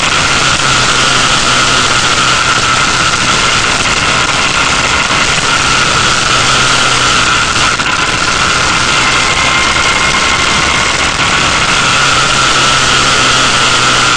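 Motorcycle cruising at a steady speed: its engine running evenly at constant revs, under a loud, constant rush of wind on the microphone.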